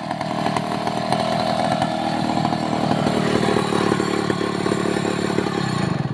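Two-stroke chainsaw engine running steadily at high speed.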